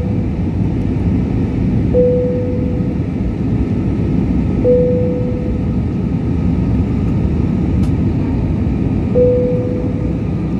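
Steady engine and airflow noise inside an airliner cabin on descent. A short, clear tone sounds three times a few seconds apart over the noise, its source unidentified.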